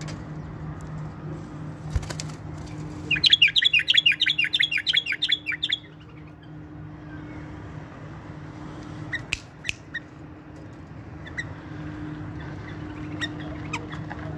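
White-eared bulbul giving a rapid run of repeated chattering notes, about six or seven a second, for roughly two and a half seconds.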